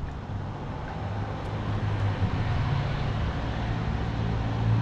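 Steady low outdoor rumble with a deep hum that swells near the end.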